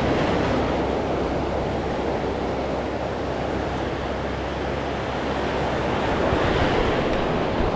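Waves breaking and washing through shallow beach surf, a steady rush of water, with wind rumbling on the microphone.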